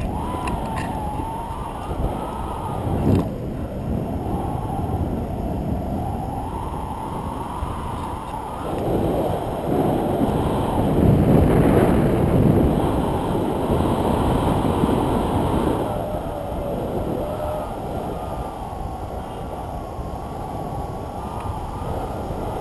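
Wind rushing and buffeting over an action camera's microphone in paraglider flight, swelling louder in gusts about halfway through, with a faint wavering whistle over it.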